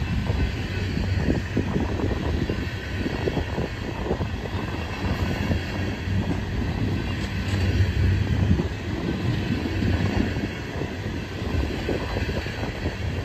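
Loaded coal hopper cars of a freight train rolling past close by: a steady low rumble with irregular clanks and clatter from the wheels on the rails.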